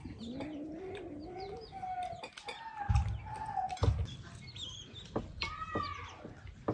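Domestic chickens calling: one long drawn-out call that rises and then holds, then shorter arched calls near the end. A couple of dull knocks come in around the middle.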